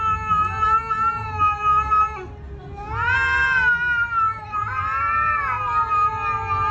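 Domestic cat yowling at another cat in a face-off: long, drawn-out, wavering howls of threat. One ends about two seconds in, and after a short break come two more, the last still going at the end.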